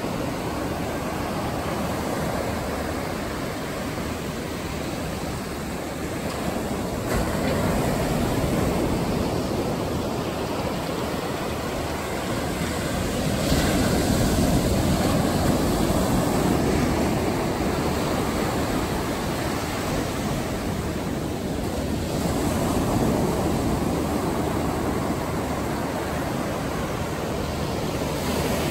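Atlantic Ocean surf breaking and washing up on a sandy beach: a continuous rushing wash that swells louder several times as waves break, most strongly about halfway through.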